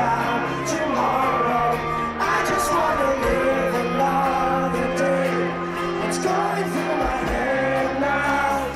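Pop song with a singer, played loud over a concert stage's sound system, with long held chords underneath the vocal.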